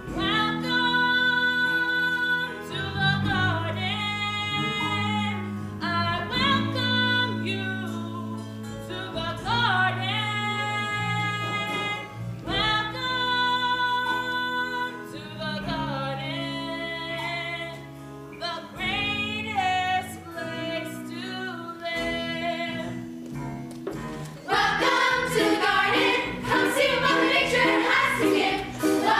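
A teenage girl singing a soulful solo song with instrumental accompaniment under a steady bass line. About 24 seconds in, the sound turns suddenly louder and fuller.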